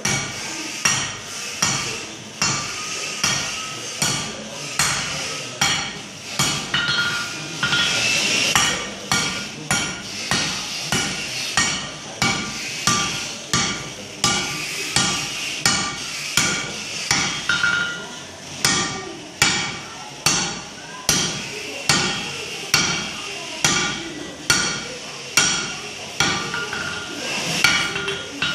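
Hand hammer striking a red-hot 1045 steel bar on an anvil in a steady rhythm, about three blows every two seconds, each blow ringing: drawing out the taper of an axe drift.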